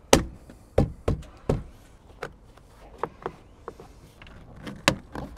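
New plastic window-frame molding on a BMW E46 rear door being pressed and knocked into place by hand. It gives a string of about a dozen sharp clicks and knocks at irregular spacing, the loudest right at the start.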